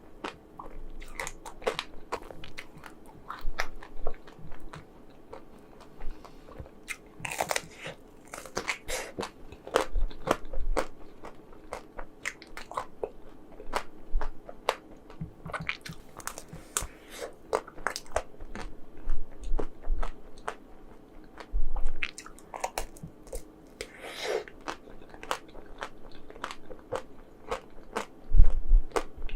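Close-miked eating of chocolate ice cream: bites cracking through a crunchy chocolate coating, then chewing, with a steady run of small wet mouth clicks and a few louder crunches.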